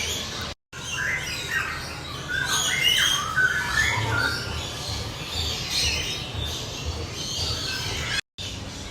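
Many aviary birds squawking and chirping at close range, short overlapping calls one after another, broken by two brief dropouts, one shortly after the start and one near the end.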